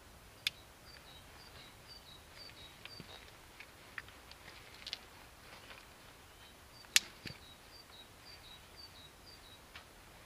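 Two sharp strikes about six and a half seconds apart, the second the loudest, with a few fainter clicks, as birch bark in a small hobo stove is lit. A small bird sings in the background, two runs of short, high, evenly spaced notes that drop in pitch.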